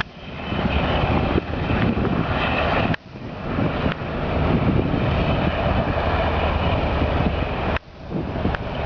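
UH-60 Black Hawk helicopter flying by, its rotor and twin turbine engines making a loud, steady noise. The sound cuts out briefly about three seconds in and again near the end.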